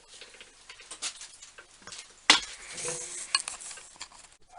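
Light metallic clinks and knocks from handling an old hand-operated bench drill, with one sharper knock about halfway through followed by a brief metallic ring.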